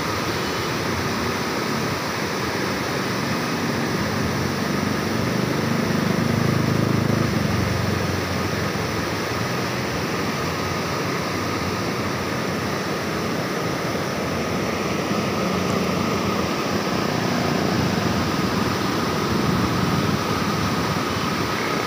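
Steady rushing of river water pouring through the Kotri Barrage gates, with a deeper rumble that swells twice, about a quarter of the way in and near the end.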